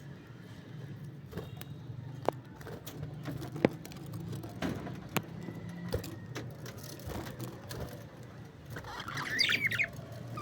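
A steady low hum with scattered sharp clicks and taps, then a short burst of budgerigar chirping near the end.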